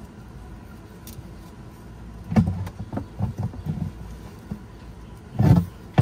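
Knocks and clunks of hands working hoses and fittings on a boat's water heater inside a cramped engine compartment: a cluster of short knocks a couple of seconds in, then a louder clunk near the end, over a low steady background rumble.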